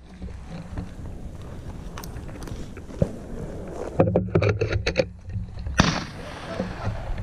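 Handling noise on a shotgun-mounted camera: a steady low rumble with scattered clicks and knocks, a quick cluster of them about four seconds in and a sharp knock near six seconds.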